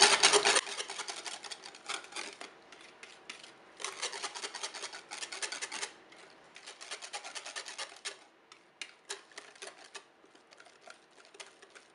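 Cake batter being stirred in a plastic microwave cake pan: a utensil scraping and ticking against the pan in quick strokes. The stirring comes in several bouts with short pauses and thins to scattered taps near the end.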